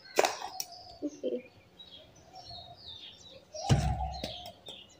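Small plastic mixer-grinder jar being handled: sharp clicks near the start as it is opened, and a louder knock about three and a half seconds in. Birds chirp throughout.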